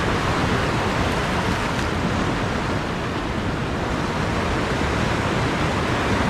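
Steady rushing of ocean surf, with wind rumbling on the microphone.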